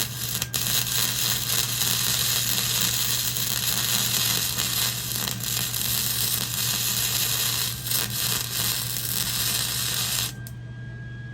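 Flux-core (gasless) wire-feed welder arc crackling and spattering steadily as a weld is laid, cutting off suddenly near the end. A steady low hum runs underneath.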